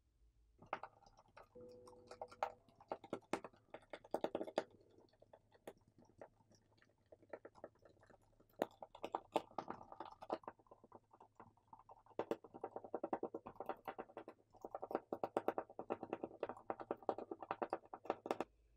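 Small Phillips screwdriver backing screws out of a phone's plastic inner cover: quiet, rapid clicking and scraping as the bit turns, in three spells.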